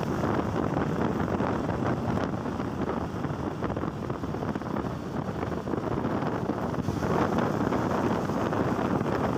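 Wind rushing over the microphone of a K-Blade 125 motorcycle at riding speed, with steady road and engine noise underneath.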